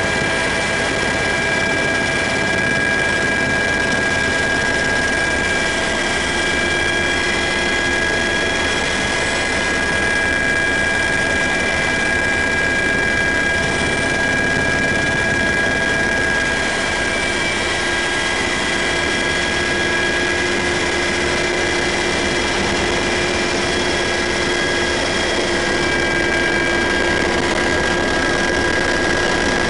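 UH-60 Black Hawk helicopter in flight, heard from inside the cabin: a loud, steady rush of twin turboshaft engine and rotor noise with several high whining tones held throughout.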